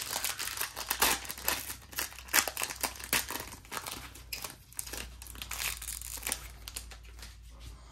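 Foil wrapper of a Panini Contenders football card pack crinkling as it is torn open and the cards are pulled out. The crackling is loudest in the first few seconds and softens toward the end.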